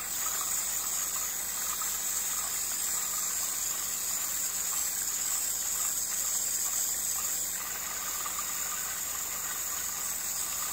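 Garden hose spray nozzle jetting water onto dirty shotgun parts, a steady hiss of spray washing the grime off.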